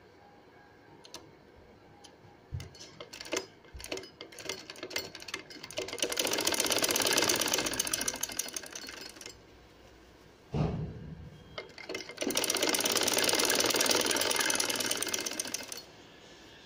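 Straight-stitch sewing machine stitching piping onto fabric in two runs of about three seconds each. Scattered clicks and knocks come before the first run, and a single thump falls between the runs.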